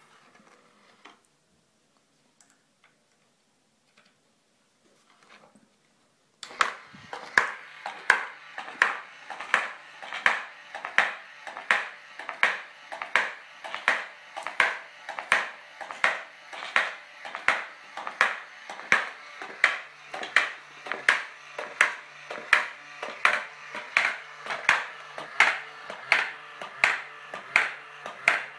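Homemade motor-driven coin-ring machine switching on about six seconds in: a small electric motor drives a string-belt pulley that repeatedly drops a hammer onto a coin on a bolt. The result is a steady run of sharp metallic taps, a little under two a second, over a faint motor hum.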